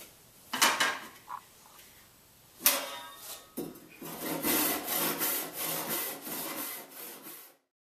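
Hand panel saw cutting a wooden board in quick back-and-forth strokes, about two a second, that stop abruptly near the end. A couple of sharp knocks come before the sawing starts.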